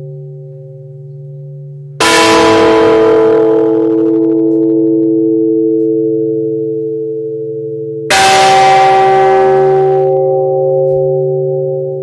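Church tower bell struck twice by its rope-pulled clapper, about six seconds apart. Each stroke rings on and fades slowly over the hum still lingering from the stroke before. This is the slow death knell tolled for a woman.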